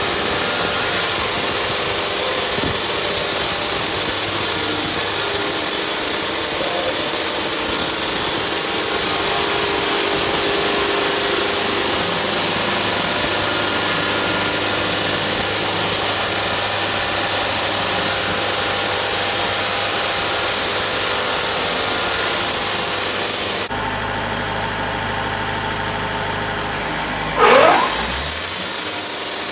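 Portable sawmill running: its engine drones steadily while the blade cuts through a log with a steady hiss. Near the end the cutting hiss drops out and the sound is quieter for a few seconds, then a short rising whine and the full cutting sound comes back.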